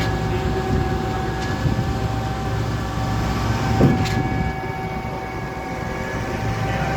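Concrete pump truck running steadily: a constant low machine drone with a steady whine over it. A single knock comes about four seconds in.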